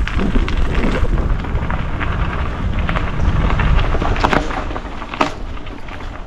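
Mountain bike riding down a dirt singletrack: tyres rolling over dirt and rocks, with rattles and sharp clicks from the bike, over a low wind rumble on the microphone.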